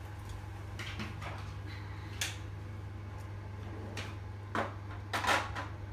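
A few light knocks and clicks of stainless-steel mixing bowls as a wet egg-and-milk mixture is tipped onto flour, the loudest about five seconds in, over a steady low hum.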